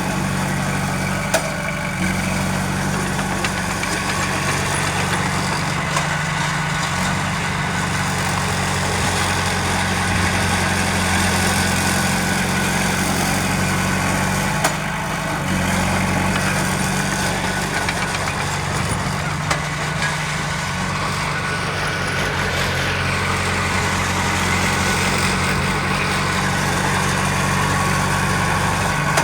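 Heavy diesel earthmoving machinery running steadily, with a couple of sharp knocks.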